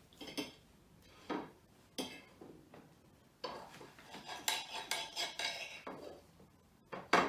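Cutlery clinking and scraping on a plate while pancakes are cut: a few separate clicks, then a longer stretch of scraping, and a sharp clink near the end.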